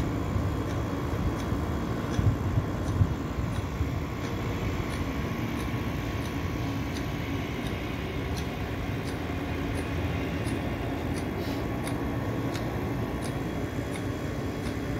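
Steady distant city traffic rumble heard from high above the streets, with a few brief louder low bumps about two to three seconds in.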